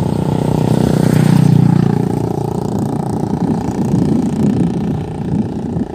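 A motor engine running steadily, growing loudest about a second and a half in and then easing off a little.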